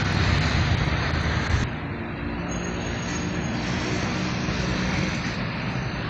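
Road traffic noise with a motor vehicle's engine running, louder for about the first second and a half, then a steadier, quieter hum.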